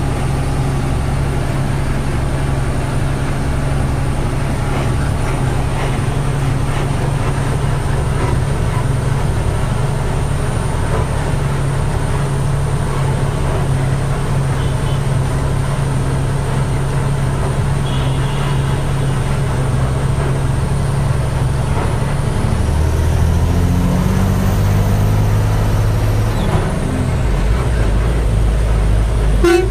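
Truck's diesel engine running steadily as it drives, heard from inside the cab. Toward the end the engine note drops and shifts in pitch a few times, and a short knock comes just before the end.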